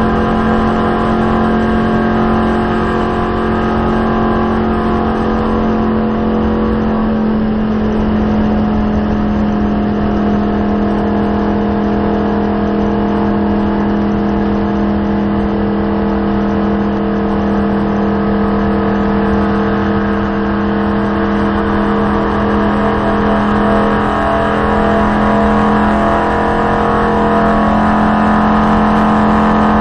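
NASCAR stock car's V8 engine running flat out at speed, heard from inside the cockpit as a loud, steady drone over road and wind noise. It grows a little louder in the last few seconds.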